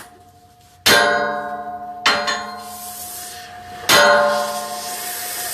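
Hammer blows on steel: four strikes, two of them close together, each leaving a long metallic ring that fades slowly.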